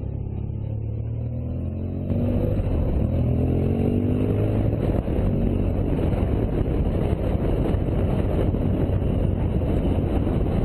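BMW R1200GSA's boxer twin engine accelerating hard about two seconds in, its note rising as the revs climb. The engine then runs on at speed under loud wind rush on the microphone.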